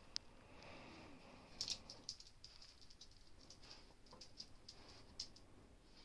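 A person's faint breathing, with a run of short, high squeaks and crackles that sound like a whimpering baby.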